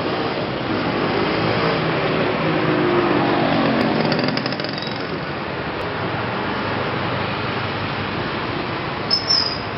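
Small motorcycles and scooters riding past close by over steady street noise. The nearest one is loudest about two to four seconds in, its engine note dropping as it goes by.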